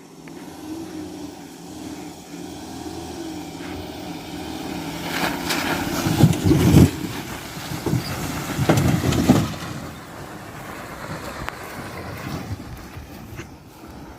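Ford Ranger 3.2 diesel engine running under load while towing a trailer of bricks off-road, its pitch wavering. Heavy knocks and rattling come in two clusters, about six to seven seconds in and again about nine seconds in, as the truck and loaded trailer jolt over rough ground.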